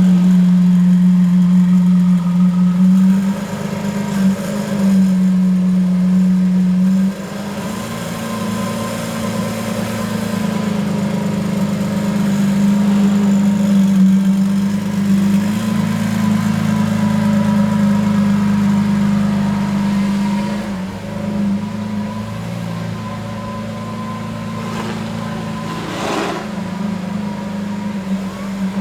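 Lamborghini Countach LPI 800-4's V12 engine running steadily, its note shifting and easing a few times, with a short knock near the end.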